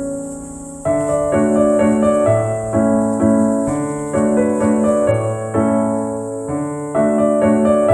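Background piano music: a gentle melody of separate notes over a repeating bass line, starting a new phrase about a second in.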